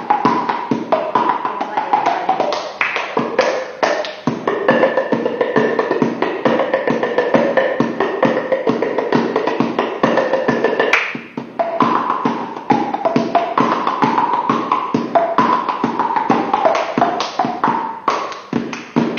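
Music: a melody carried on fast, even tapped or rapidly picked notes, with a short break about eleven seconds in.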